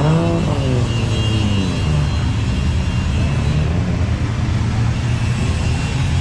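Car engine revving, its pitch swinging up and down in the first couple of seconds, then running at a steady low pitch.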